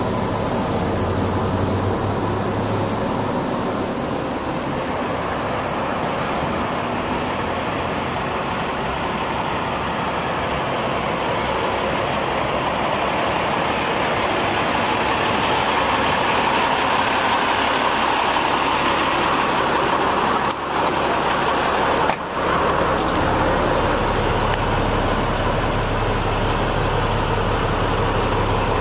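Diesel truck engine, the 1989 Autocar's Cummins LTA10, running steadily at idle. Briefly drops out twice about two-thirds of the way through.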